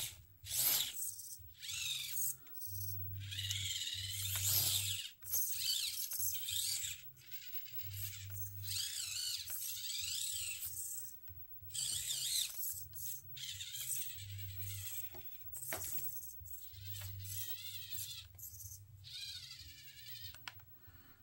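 Axial AX24 micro crawler's Power Hobby electric motor and gears whining in short bursts of a second or so as it drives, the pitch sliding up and down with the throttle.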